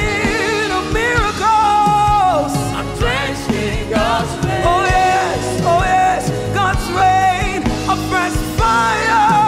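Live gospel worship song: a woman's amplified lead vocal, sustained and wavering in pitch, over instrumental backing with a steady beat.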